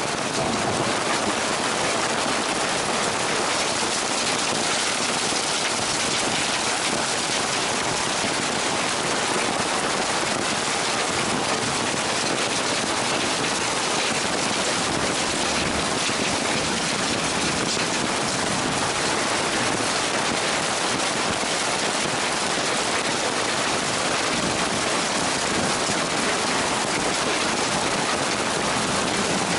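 Heavy rain pouring down in a thunderstorm: a steady, even hiss.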